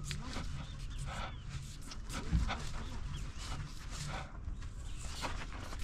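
A dog making short high-pitched sounds, over a steady low rumble and scattered clicks.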